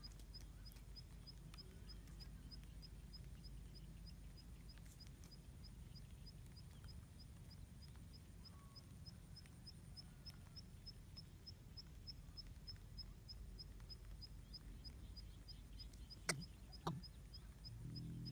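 A faint, high-pitched chirp repeats steadily about three to four times a second over a low, quiet outdoor rumble. Two sharp clicks come near the end.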